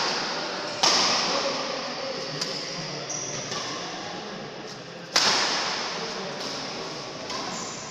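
Badminton rackets striking a shuttlecock during a doubles rally: two loud sharp hits, about a second in and about five seconds in, each ringing out in the hall's echo, with lighter hits between them.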